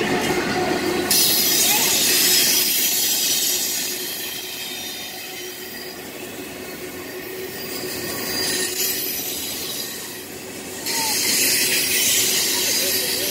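Double-stack container train's loaded well cars rolling past: a steady rush of steel wheels on rail, with thin squealing tones from the wheels. The high hiss swells about a second in, eases off through the middle, and comes back loud near the end.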